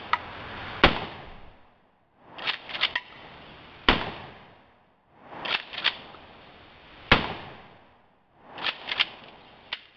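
Mossberg 500 12-gauge pump-action shotgun fired three times, about three seconds apart, each shot a single sharp crack with a short tail, and the pump action racked with a quick clatter between shots.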